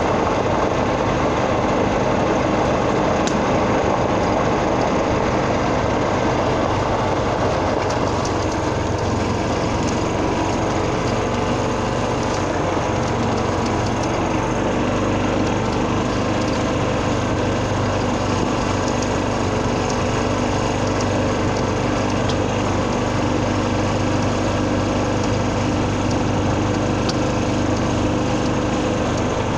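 Small engine running steadily at an even speed, on a utility vehicle being driven across the course.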